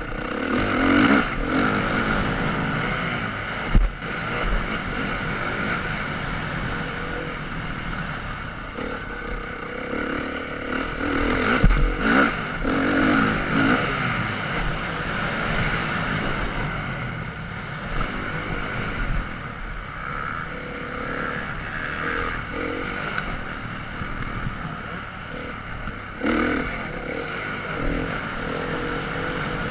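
Motocross bike engine running hard onboard, its pitch rising and falling, with heavy wind rush on the microphone. Two sharp knocks stand out, the louder about four seconds in and another near twelve seconds.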